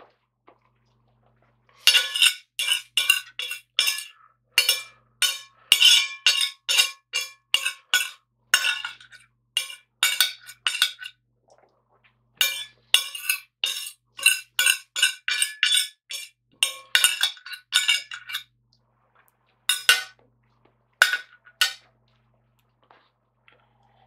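Steel knife and fork scraping and clinking on a ceramic dinner plate in quick, ringing strokes, about three or four a second, as the last scraps are cleared from the plate. A few separate clinks near the end as the cutlery is laid down on the plate.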